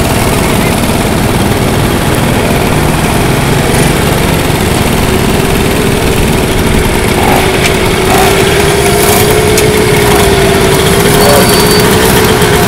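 Several small moped engines running as the riders move at low speed, a steady drone. A wavering engine note comes in about halfway and holds to the end.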